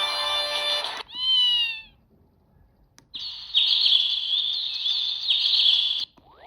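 Samsung SGH-X480 mobile phone playing its built-in ringtones: a chiming melody ends about a second in, then comes a short tone gliding down in pitch. After a pause and a click, a bird-like warbling chirp tone plays for about three seconds and stops.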